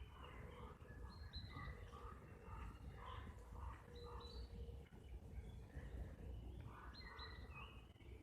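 Faint birdsong: repeated short chirps and calls, over a steady low rumble.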